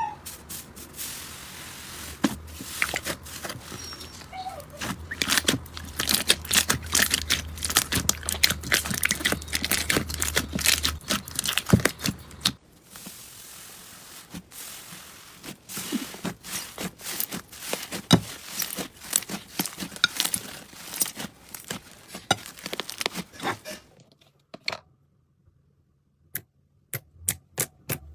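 Slime being squeezed and poked, giving dense crackling and popping clicks. It pauses briefly near the end, then gives a run of evenly spaced pops, about three a second.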